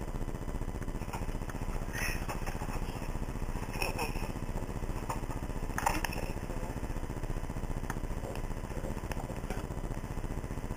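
Steady low rumbling drone on a recorded phone call, with a few faint, brief muffled voice sounds about two, four and six seconds in.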